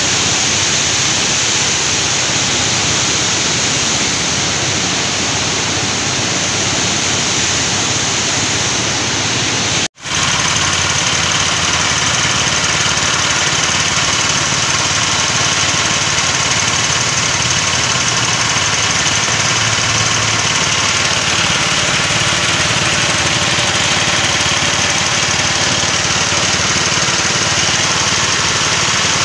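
Floodwater in a swollen, muddy river rushing and churning over rocks: a loud, steady roar of water that cuts out for an instant about ten seconds in.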